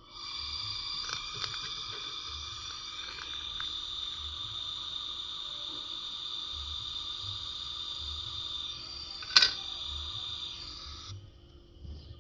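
Gas torch flame hissing steadily while a refrigerator's copper refrigerant pipe joint is brazed; it starts suddenly and cuts off about 11 seconds in. A sharp click comes about 9 seconds in.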